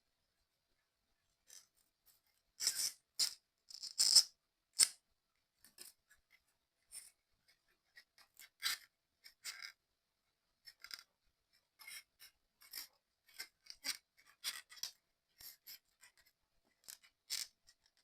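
Small pieces of a 3D excavator puzzle kit being handled and fitted together: irregular clicks, taps and short scraping sounds, the loudest cluster a few seconds in.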